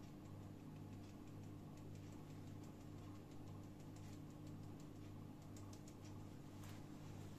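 Light, irregular finger taps on a small metal mesh sieve, shaking cocoa powder through it, over a steady low hum.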